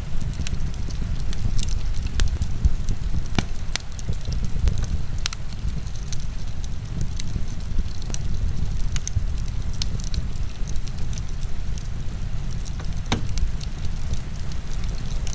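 Wood fire crackling, with scattered sharp pops and a stronger pop near the end, over a steady low rumble and hiss of heavy rain.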